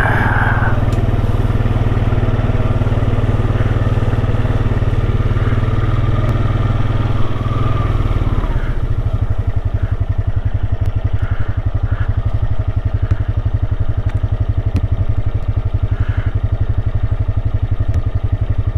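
Small off-road vehicle engine running as it rides through brush. About eight seconds in it drops to a slower, evenly pulsing beat.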